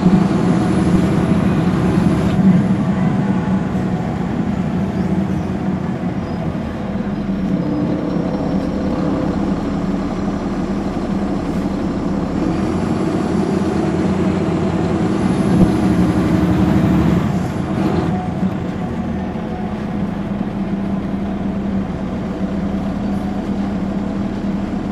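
Caterpillar C13 diesel engine of a NABI 416 transit bus running under way. A high whine rises as the bus pulls, cuts off early on, then builds again to a peak about two-thirds through before the engine lets off.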